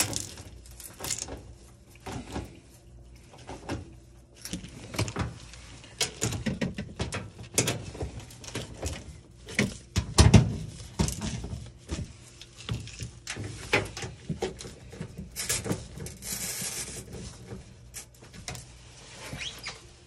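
Irregular clicks, knocks and scrapes of hand tools and screws on a washing machine's sheet-metal cabinet as its top panel is fastened down, the loudest a single thump about halfway, with a brief hiss about three-quarters of the way through.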